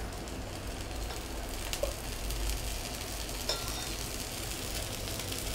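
Corn dosa batter frying in oil on a hot dosa tawa: steady sizzling, with a couple of faint clicks.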